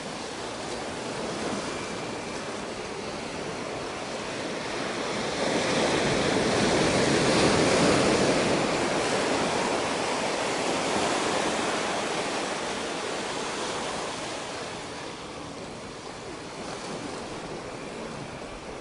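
Ocean surf washing up a sandy beach among rocks: a steady hiss of foam that swells to its loudest about a third of the way in as a wave comes in, then slowly ebbs.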